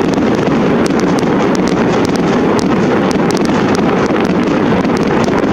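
Steady rush of wind noise on the microphone, with scattered faint sharp crackles over it.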